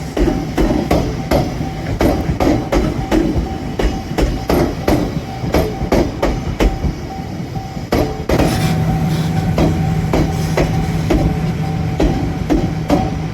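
Railway level-crossing alarm ringing steadily, about two to three strikes a second. About eight seconds in, a train's steady low hum joins it and the overall sound grows louder.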